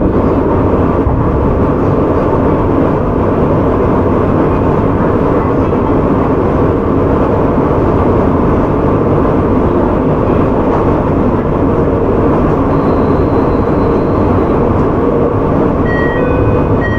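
Onboard sound of a JR Hokkaido 731 series electric train car running at speed: a steady rumble of wheels on rail and running gear. A short run of stepped electronic tones comes in near the end.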